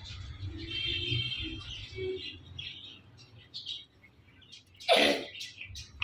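Indian ringneck parakeets chirping and chattering softly, then one loud, harsh squawk sweeping downward in pitch about five seconds in.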